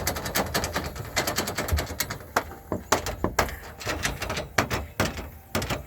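Quick, irregular clicking and clattering of greenhouse door-bar frame parts being handled and worked along a frame track, with many sharp taps a second.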